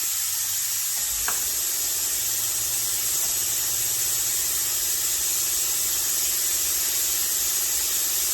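A machine running with a steady hiss and low hum; a steady whine comes in about a second in.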